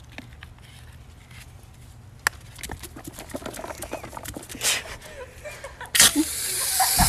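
Clicks and light knocking as a ketchup bottle loaded with baking soda is shaken. About six seconds in, a sudden loud hissing spray starts as gas from the baking soda reacting with the ketchup forces it out of the bottle.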